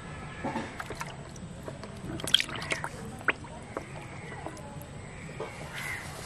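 A live fish splashing as it is dropped into a plastic tub of water, with drips and small splashes; the loudest splash comes a little over two seconds in, and another sharp one about a second later.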